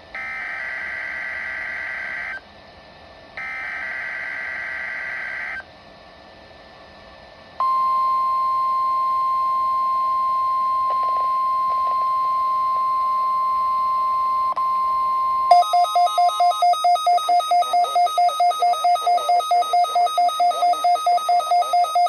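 NOAA Weather Radio test signals: two bursts of warbling SAME digital header data, then the steady 1050 Hz warning alarm tone about 8 seconds in. About 15 seconds in, a rapid beeping alarm of about four beeps a second cuts in, and the steady tone stops soon after.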